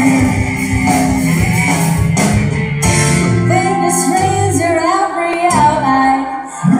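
Live band playing through a PA with a woman singing lead over electric guitar, bass, drums and keyboards. The music dips briefly near the end, then comes back in.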